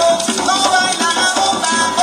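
Live Puerto Rican bomba music: hand-played barrel drums (barriles de bomba) keeping a dense rhythm under a shaken maraca and sung vocals.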